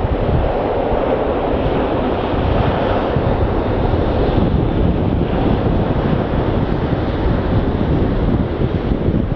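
Wind buffeting the microphone: a loud, steady rushing noise with uneven low rumbling gusts.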